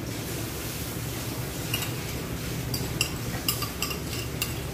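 A metal spoon clinking against a ceramic bowl and the pan, a run of sharp ringing clinks starting about two seconds in, while a mixture is poured from the bowl into a frying pan. A steady low hum runs underneath.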